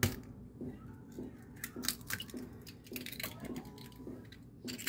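Irregular light clicks and knocks of kitchen utensils against cookware.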